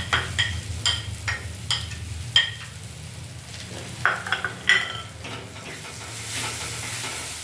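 A metal utensil stirring dry spice powders into onion, ginger and garlic frying in oil in a pan, striking the pan in a run of ringing clinks, a few more about four seconds in. Under it the oil sizzles steadily, a little louder near the end.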